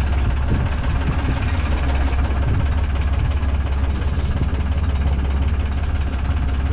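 Small fishing boat's engine idling, a steady low drone.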